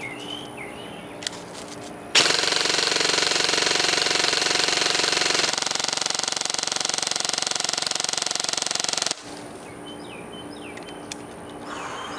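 G&G SR30 airsoft electric rifle firing one long full-auto burst of about seven seconds, its gearbox cycling in a fast, even rattle. The burst starts about two seconds in, shifts slightly in tone partway through, and cuts off sharply.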